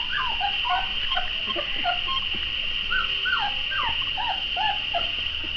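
Young puppies whimpering: a run of short, high squeaks that each fall in pitch, coming in clusters with a brief pause near the middle. A steady high-pitched hiss runs underneath.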